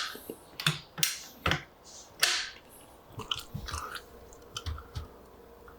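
Irregular clicks, taps and short rasping scrapes of hand work on a wooden rifle stock, with one longer rasp about two seconds in, a cluster of small clicks a little later, and a few more taps near the end.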